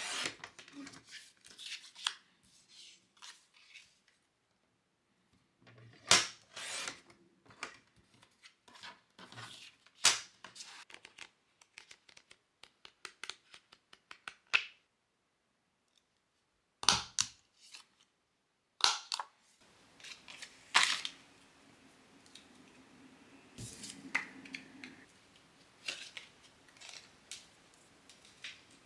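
Sliding-blade paper trimmer cutting card stock: groups of short, sharp slicing strokes and clicks as the blade runs along the rail, with paper handled between cuts. In the last several seconds, softer small clicks over a faint hum.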